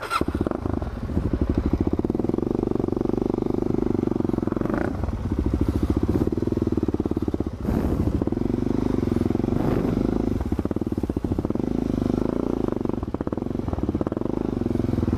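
Suzuki DR-Z400's single-cylinder four-stroke engine running under way as the dirt bike is ridden, easing off briefly a couple of times before pulling again.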